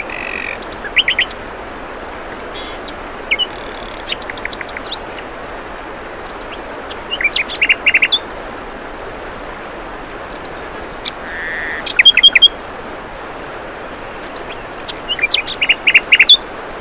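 Songbirds chirping in short bursts of quick, high repeated notes every few seconds, loudest about twelve seconds in, over a steady hiss.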